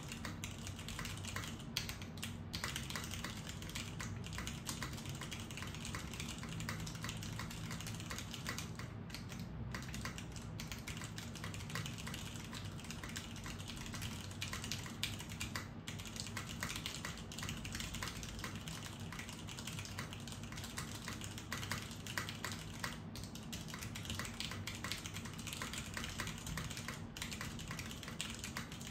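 Continuous typing on a Salamander TKL mechanical keyboard with unlubricated stock Cherry MX Brown switches, five years broken in, under Cherry-profile POM keycaps. The board is sandwich-mounted on a PBT plate with no dampening. The keystrokes come in a steady, unbroken run of clicks with no pauses.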